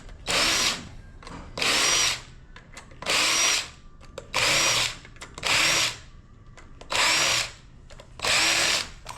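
Power drill run in seven short trigger pulls, about one every 1.3 seconds, each spinning up with a rising whine and then running for about half a second.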